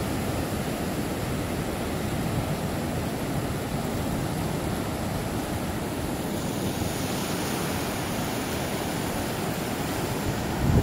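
Ocean surf breaking and washing up the beach, a steady rush of noise.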